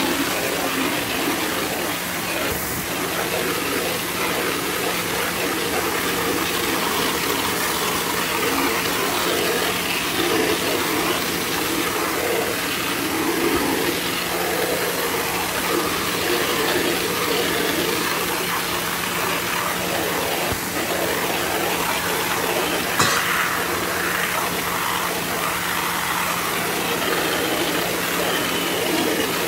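Pressure washer spraying a jet of plain water against vinyl siding and a concrete step: a steady hiss of spray over the machine's steady hum. One brief sharp click about three quarters of the way through.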